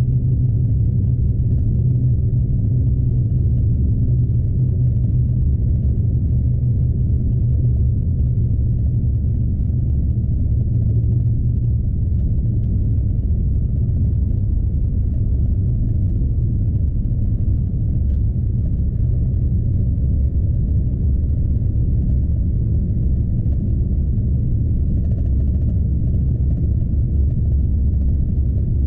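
Scania truck's diesel engine and road noise heard from inside the cab: a steady, low drone under way, with no change in pace.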